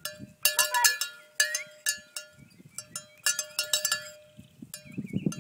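Cowbell worn by a walking dog, clanking in uneven clusters of strikes about once a second, each clang ringing briefly.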